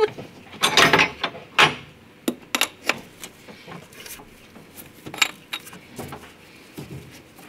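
Irregular metallic clicks, clinks and knocks of hand tools and fittings being handled in a car engine bay, at the start of removing an oil-line setup by the oil filter. The strongest clicks come in the first couple of seconds and once more about five seconds in.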